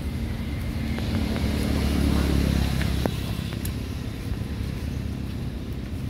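A low engine hum that swells about two seconds in and eases off after about three seconds, as of a motor vehicle passing.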